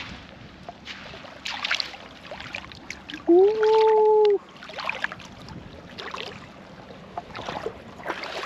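Bare feet wading into shallow seawater, splashing with each step about once a second. A little past three seconds in comes a loud, drawn-out vocal cry lasting about a second, a reaction to the cold water.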